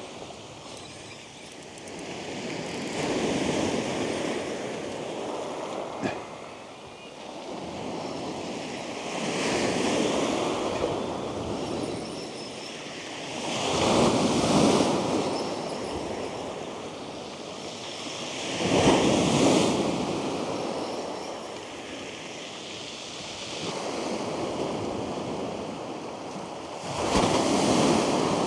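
Waves breaking and washing up a shingle beach, swelling about every four to five seconds, with a short knock about six seconds in.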